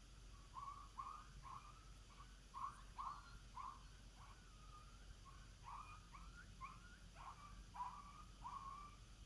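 Triple-reed diaphragm coyote howler blown in a quick string of short, rising, faint notes, about two a second, imitating coyote yips.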